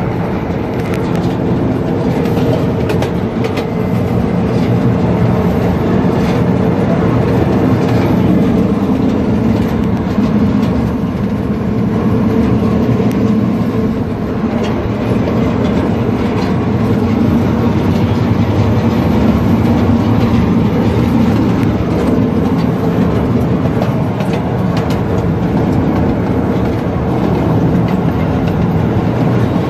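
Miniature ride-on train running along its track, a steady rumble and hum with the wheels clicking now and then on the rails.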